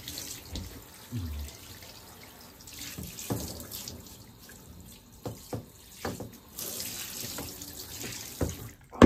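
Water from a hand-held shower head running and spraying onto a cat in a bathtub, with scattered short knocks and taps throughout. The spray is louder for a couple of seconds past the middle, and one sharp loud knock comes at the very end.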